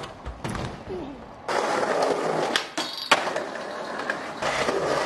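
Skateboard on hard ground: wheels rolling with a steady grinding hiss, broken by sharp clacks of the board, the loudest about three seconds in.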